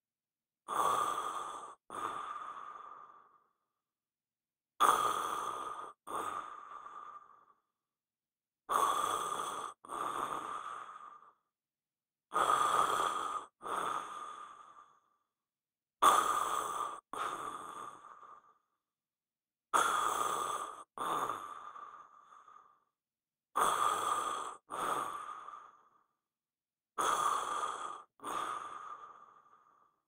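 A man snoring in his sleep: eight breaths, each in two parts about a second apart, the cycle repeating roughly every four seconds with silence between.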